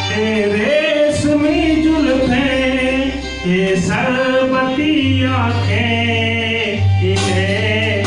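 A man singing into a handheld microphone, amplified through a speaker, over a music accompaniment with a low bass line that changes note every second or two.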